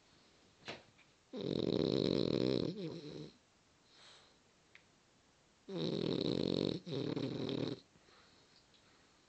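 French Bulldog snoring: two loud, rough snores, each about two seconds long, the first starting over a second in and the second a little past the middle.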